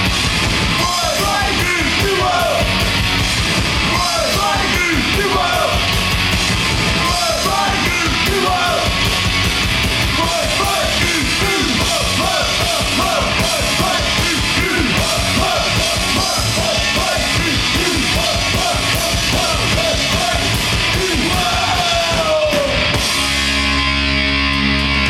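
Live rock band playing: shouted lead vocals over distorted electric guitars, bass and drums. The song stops abruptly near the end, leaving a steady held chord ringing out.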